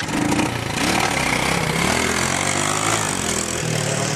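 Honda ATC70's single-cylinder four-stroke engine, bored out to 128 cc with a Nice cylinder and Takegawa Superhead, revved up from idle. The pitch rises and falls as the throttle is worked, then eases back about three and a half seconds in.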